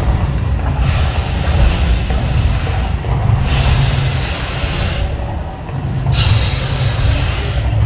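Volcano eruption show: a continuous deep rumble, broken by three hissing rushes a second or two long as the fire and water jets shoot up.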